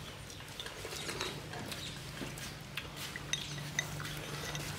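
Chopsticks clicking and tapping against porcelain bowls and plates during a meal, with a few light clinks, over a faint steady low hum.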